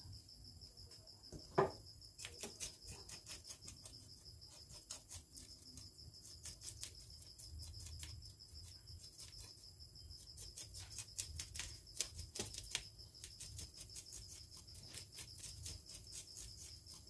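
Kitchen knife scraping scales off a small barracuda over a stainless steel bowl: quick, faint, irregular scraping clicks, with one sharper knock about one and a half seconds in. A steady high thin tone runs underneath.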